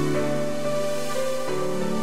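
Background music: soft sustained chords that change about one and a half seconds in.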